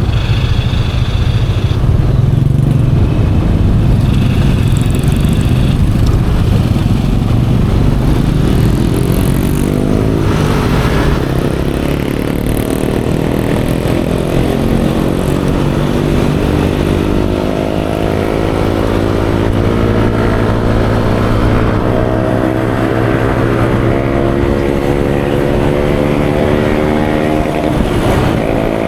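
Yamaha Aerox 155 scooter being ridden on city roads: its single-cylinder engine running under a steady low rumble of wind on the microphone, the engine pitch climbing slowly as it accelerates in the second half. Two brief high tones sound within the first few seconds.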